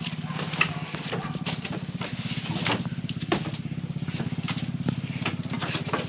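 A small engine running steadily with a fast, even low pulse, with scattered knocks and rustles over it.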